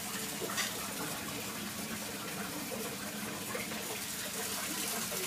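Bengal cat urinating into the water of a toilet bowl: a steady trickle of liquid pouring into water.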